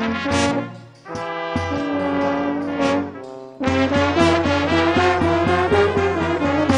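Balkan Gypsy brass band playing, with trumpets and trombones. Long held notes break off briefly about a second in and again around three and a half seconds, then give way to a fast run of short notes over a steady low pulse.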